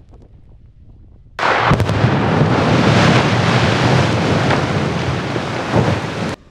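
Explosive rock blast on a roadside cliff face, heard close up: a sudden loud blast about a second and a half in, followed by several seconds of continuous rumbling as shattered rock and debris come down. The sound cuts off abruptly near the end.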